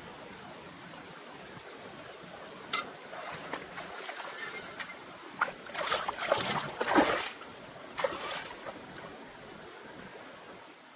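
Water splashing and trickling in a run of short bursts, with a few sharp clicks, over a steady hiss of running water.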